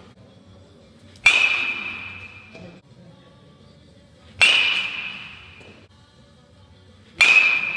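Baseball bat hitting pitched balls three times, about three seconds apart. Each hit is a sharp crack followed by a ringing ping that fades over a second or so.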